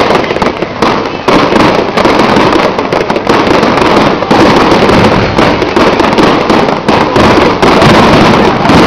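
Aerial fireworks bursting overhead: loud, dense crackling with many closely overlapping bangs and pops from the shells and crackling stars.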